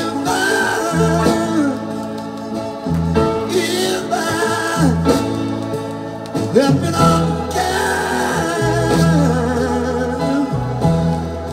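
Vinyl LP playing on a turntable: a slow live rock-soul ballad, a male lead vocal with long, wavering sung notes and gospel-style backing singers over a band.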